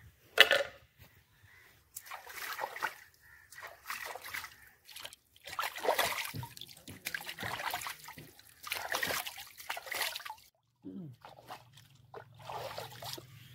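Raw chicken pieces washed by hand in shallow stream water: splashing and trickling in irregular bursts, each a second or so long. About half a second in there is one sharp, loud sound, the loudest in the stretch.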